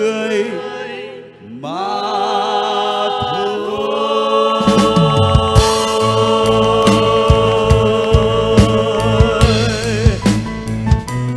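Group of singers holding the closing notes of a worship song in harmony, with wavering vibrato, over a live band. About four and a half seconds in, the drum kit and bass come in with repeated drum strikes under the sustained chord.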